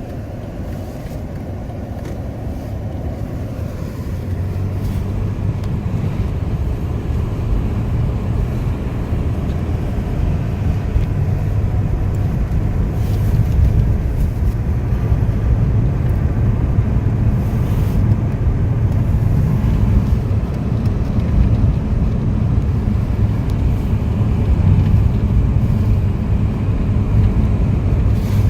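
A car driving, heard from inside the cabin: a steady low rumble of engine and tyres on the road, growing louder over the first few seconds and then holding steady.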